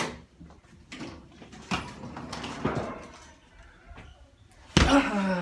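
A room door being opened and a rolling suitcase brought in: a sharp click, then several separate knocks and rattles. Near the end, a loud thump followed by a man's drawn-out vocal sound falling in pitch.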